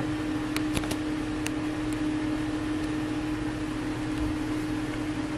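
Steady mechanical hum with one constant low tone, and a few light clicks in the first second and a half.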